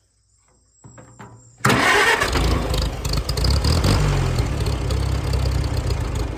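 Farmall A tractor's four-cylinder engine cranking and trying to fire, starting about a second and a half in and turning over unevenly without settling into a steady run: a sign it is getting at least some fuel.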